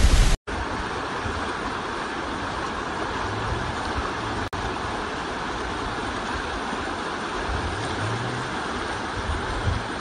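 Fast-flowing muddy floodwater rushing past in a steady, unbroken noise.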